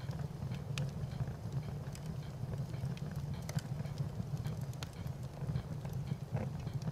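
Fire burning with a steady low rumble and irregular sharp crackles and pops.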